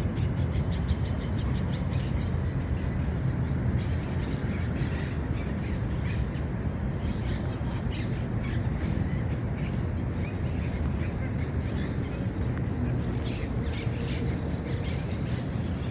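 Park birds calling and squawking, many short repeated calls, over a steady low rumble.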